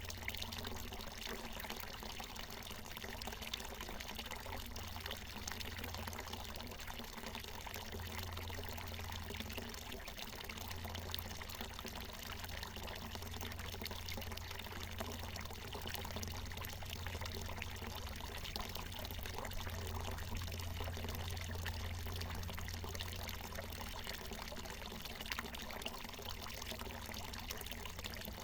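Water from a natural mountain spring falling and pouring steadily.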